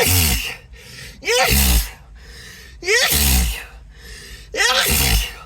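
A person sneezing in a rapid fit, four sneezes about a second and a half apart. Each is a short voiced gasp breaking into a loud noisy "choo".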